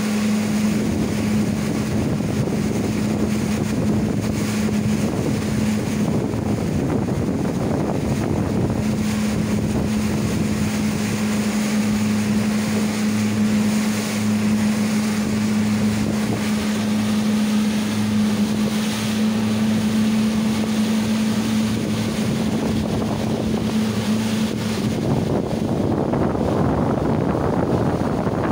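Motorboat engine running under way at a steady speed, a steady hum, with wind buffeting the microphone and water rushing along the hull. About 25 seconds in the engine hum drops away and the wind and water noise grows louder.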